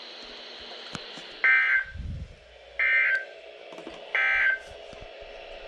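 Emergency Alert System end-of-message data bursts from a weather radio: three short, identical, shrill warbling bursts about a second and a half apart, marking the end of the severe thunderstorm warning. A steady low hum and hiss of the radio channel runs under them.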